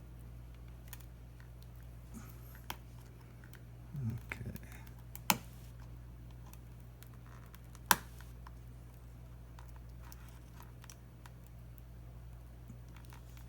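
Small hand tools clicking and tapping against the tablet's glass and frame now and then, with two sharp clicks standing out about five and eight seconds in, over a steady low hum.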